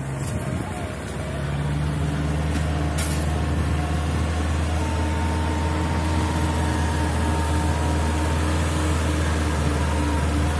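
Farm tractor's diesel engine running steadily under load as it tills a flooded rice paddy, growing a little louder about a second in.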